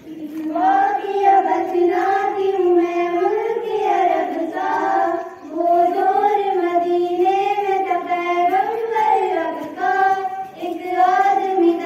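Young girls' voices singing a slow melody together, unaccompanied, in phrases with short breaks for breath.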